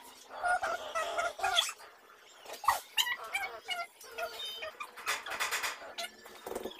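Small dog making short, pitch-bending whines and play noises as it tussles with a person, with scattered rustling.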